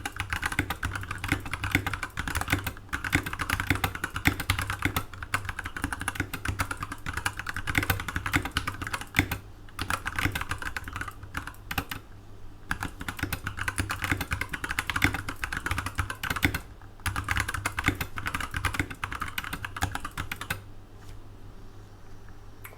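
Fast typing on a SkyLoong GK64XS mechanical keyboard with Kailh Brown tactile switches and PBT keycaps: dense runs of keystrokes with a few short pauses, stopping shortly before the end.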